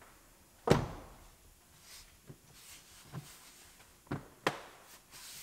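A few sharp knocks and clicks of plastic interior trim, the door sill plates, being pressed down and snapped into place. The loudest comes just under a second in, with two more close together about four seconds in.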